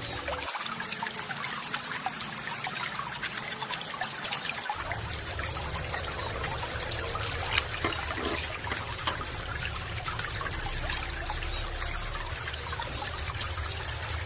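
Food frying in hot oil: a steady, crackling sizzle full of fine pops.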